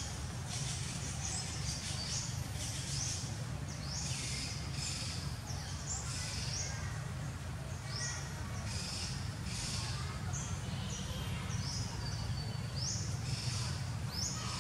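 A string of short, high-pitched animal calls, one or two a second, some sliding down in pitch, over a steady low rumble.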